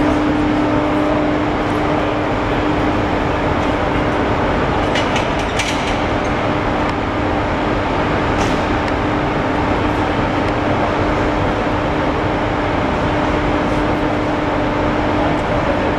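Steady machinery hum with a constant low tone, filling a large hall, with a few faint clicks.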